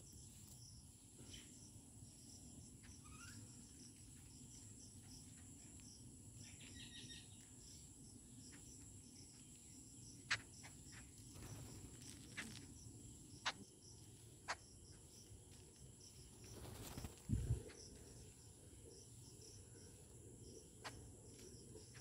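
Faint, steady chirring of insects such as crickets, with a few sharp ticks of birds' beaks pecking maize grains on concrete, scattered from about ten seconds in. A short, dull low thump comes a little past halfway and is the loudest sound.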